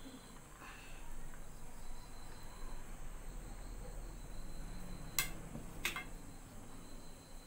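Rice pushed by hand from one plate onto another, then two sharp knocks about half a second apart a little past halfway, as a plate is set down on the table. A faint steady high tone runs underneath.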